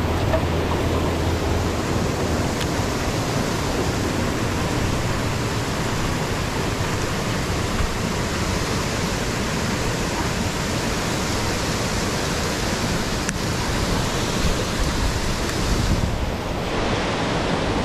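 Fast-flowing river rushing steadily over rocks.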